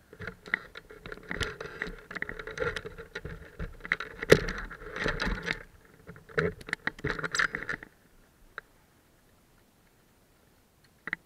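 Rapid, irregular rattling and knocking of a motorcycle-mounted camera and its mount, shaken on a rough gravel track. It stops about eight seconds in, leaving only a few faint clicks.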